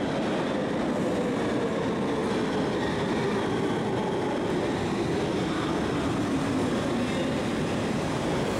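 Brussels Metro train pulling into an underground station and braking along the platform: a steady rumble of wheels on the rails, with a whine that falls slowly in pitch as the train slows.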